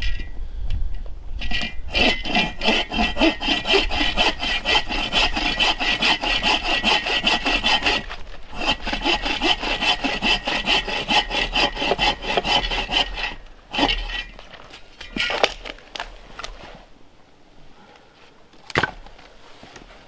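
Hand saw cutting through wood with quick, even strokes, with a short pause about eight seconds in. It ends with a few last strokes and a single sharp knock near the end.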